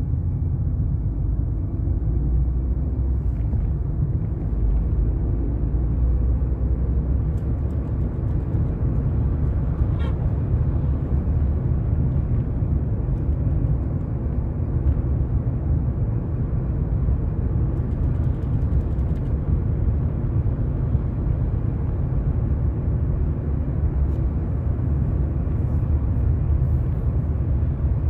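A car driving, with steady low engine and road rumble as heard inside the cabin.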